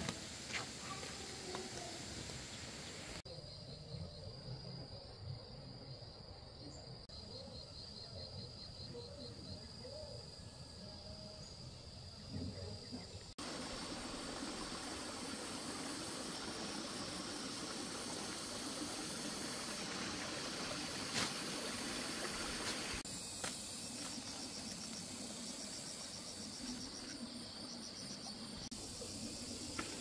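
Insects chirping in fast, evenly pulsed high trills over an outdoor hiss, the background changing abruptly several times, with a few sharp clicks about two-thirds of the way through.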